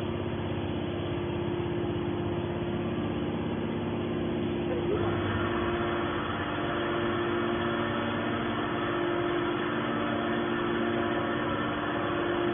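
Hydraulic scrap-metal baler running: a steady machine drone with a held low hum, turning brighter and slightly louder about five seconds in.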